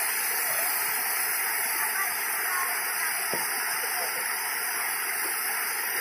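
Steady rush of river water flowing over rocks, an even hiss that holds at the same level throughout, with faint voices far off.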